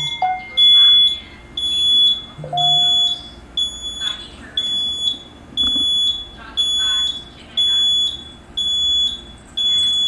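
Fire alarm sounder beeping: a high-pitched electronic tone pulsing on and off about once a second, which turns into a steady tone near the end. The system is back in alarm after a reset because the activated pull station has not been cleared.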